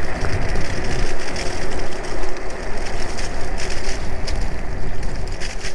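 An iScooter iX4 electric scooter riding along a leaf-strewn path: wind rushing over the microphone and tyre rumble, with a faint steady whine from its 500-watt motor and small scattered clicks and crackles.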